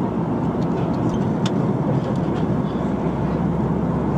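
Steady cabin noise of an Airbus A340-300 airliner in cruise, the even rush of airflow and engines heard from inside the cabin, with a few faint clicks about a second in.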